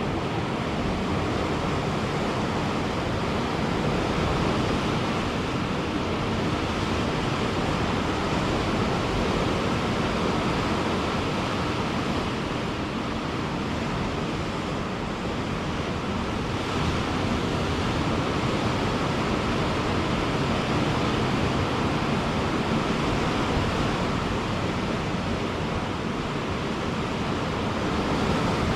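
Ocean surf: a steady wash of breaking waves, swelling gently in loudness, with some wind on the microphone.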